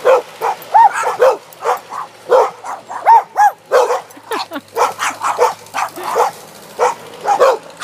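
Several pet dogs barking rapidly and without a break, about two to three sharp barks a second, at a tractor plowing snow.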